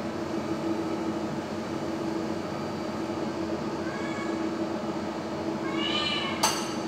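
A cat meowing twice, a faint call about four seconds in and a louder one near six seconds, over a steady background hum. A sharp metallic clink comes just after the second meow.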